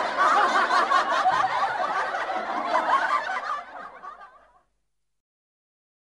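Several voices laughing and snickering together, fading out about four seconds in.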